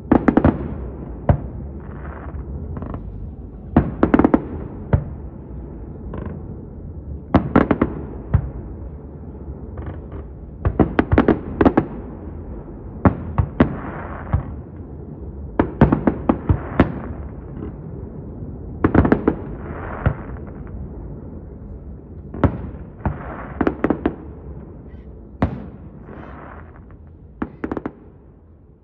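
Aerial fireworks bursting: sharp bangs every second or two, often several in quick succession, over a steady low rumble. The bangs thin out and fade near the end.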